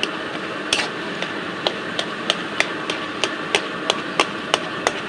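A metal spatula knocking and scraping against a metal kadai while vegetables are stir-fried, about three sharp clinks a second, over a steady sizzle from the pan.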